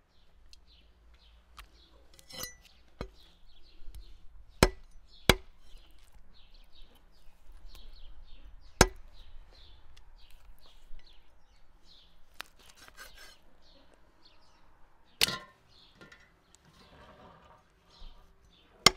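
Heavy cleaver chopping raw quail on a thick wooden chopping block: several sharp, separate blows at uneven intervals. Small birds chirp faintly in the background.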